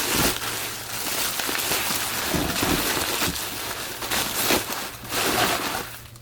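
Packing material crinkling and rustling as a parcel is torn open and unwrapped by hand, a dense run of crackles that stops near the end.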